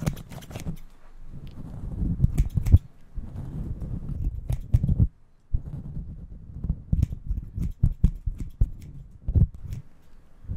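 Close-up hair-cutting scissors snipping irregularly at the furry windscreen of a microphone, mixed with low rubbing and thudding from hands and a comb working the fur. There is a brief pause about halfway through.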